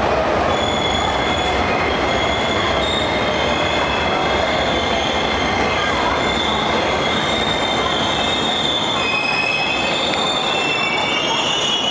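Beijing Subway Line 1 train running through an underground station, with a steady loud rumble, a motor whine falling in pitch as it slows in the first few seconds, and high wheel squeals throughout that grow stronger near the end.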